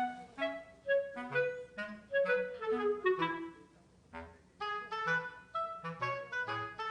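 Background music: a light instrumental tune of short, detached melody notes over a bass line, with a falling run of notes about halfway through.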